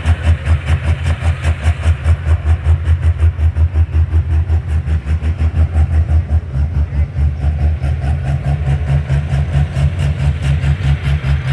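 Large engine idling in a deep, steady lope, about four to five pulses a second.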